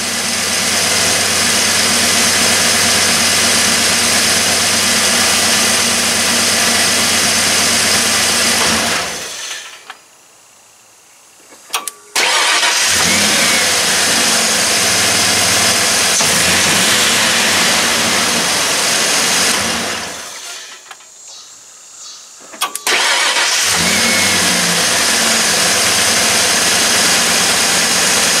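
Ford truck engine idling, then switched off about nine seconds in and restarted on a short crank a few seconds later. This happens twice. It is a start test after the weak battery has been charged, and each time the engine catches almost at once.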